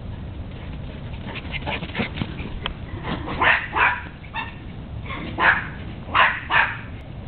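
Dogs barking while playing: a few light barks early on, then three pairs of louder barks in the second half.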